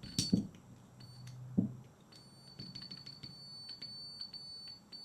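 Multimeter continuity beeper sounding a high tone in broken, stuttering beeps as its probes touch the grinder armature's contacts, becoming a near-steady beep later on. A few light clicks of the probes come near the start. The tone signals electrical continuity through the armature.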